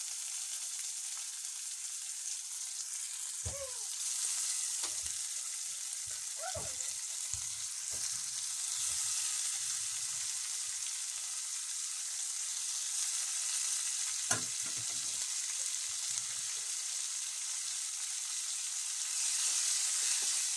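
Minced meat (keema) sizzling in hot oil with fried onions in a metal kadhai: a steady high hiss, with a few light clicks and a ladle starting to stir it near the end.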